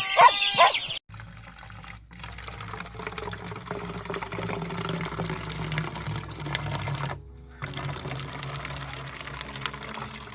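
Liquid being poured and splashing, likely the homemade pesticide being mixed or filled, in takes broken by two brief cuts. A rooster crows in the first second.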